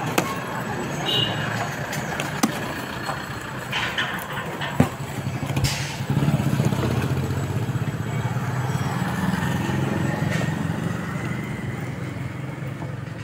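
A motor vehicle engine running steadily, louder from about six seconds in, with sharp clicks and scrapes from a cardboard laptop carton being handled and opened.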